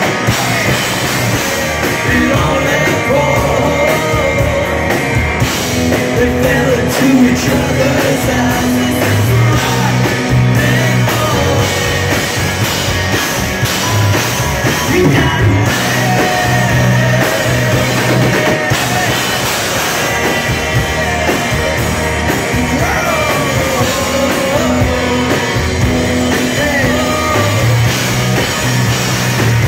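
Rock band playing live: electric guitars and drums, with a man singing.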